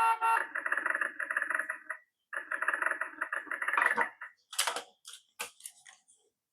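VTech Go! Go! Smart Wheels toy car's small speaker playing its electronic sound effects: a short tone, then a rattling engine-style effect in two stretches of about two seconds each, followed by a few sharp clicks.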